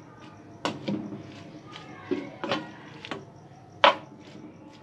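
A spatula knocking and scraping against a pan as it mixes a soft mash of boiled potato, noodles and vegetables. Irregular knocks come every half second to a second, and the loudest is about four seconds in.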